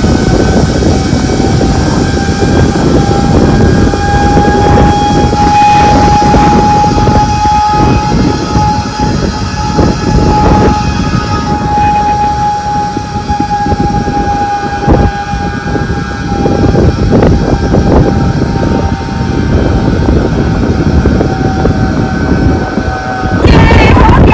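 Zip-line trolley pulleys running along the steel cable: a steady whine that rises slightly and then eases off, over rushing wind on the microphone. The whine stops shortly before the end, where loud wind buffeting of the microphone takes over.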